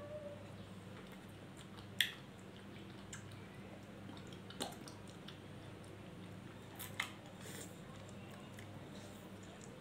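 A small kitchen knife cutting ripe papaya held in the hand, with a few faint wet slicing sounds and three sharp clicks, about 2, 4.5 and 7 seconds in. A steady low hum lies underneath.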